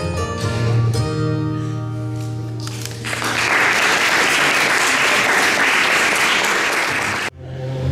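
Guitar music closing on held notes, then guests applauding for about four seconds. The applause cuts off abruptly.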